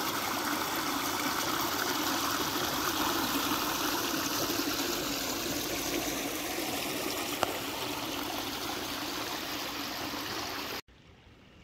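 Steady rushing of flowing creek water, with one sharp click partway through. The sound cuts off abruptly near the end.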